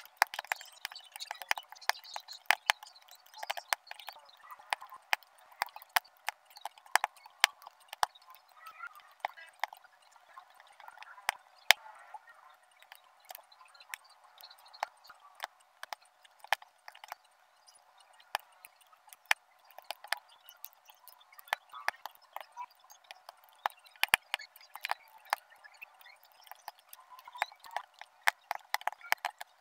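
Sharp irregular clicks and taps of metal tweezers picking small square resin drills and pressing them onto a diamond painting canvas, several a second, over a faint rustle.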